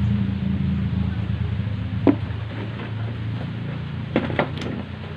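Electric hair clipper running with a steady low buzz that slowly fades, with a few short sharp clicks about two seconds in and again near the end.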